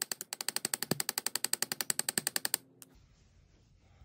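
Rapid light hammer taps on a steel punch, about ten a second, driving a roll pin into the bolt catch hole of an AR-15 lower receiver; the tapping stops about two and a half seconds in as the pin is started.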